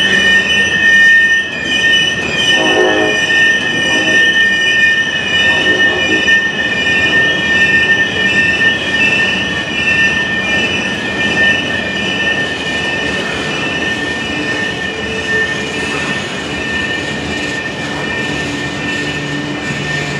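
Freight train of covered hopper cars rolling past, its wheels squealing steadily on the curve over the rumble of the cars.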